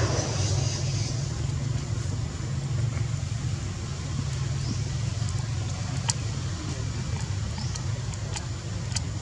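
A steady low engine rumble runs throughout, with a few faint, sharp clicks near the end.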